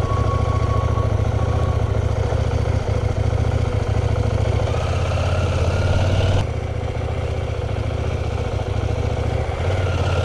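CFMOTO Ibex 800T's 799 cc parallel-twin engine running under way, heard on board the moving motorcycle. The revs climb from about halfway through, the engine note drops off sharply a little after six seconds in, and it pulls up again near the end.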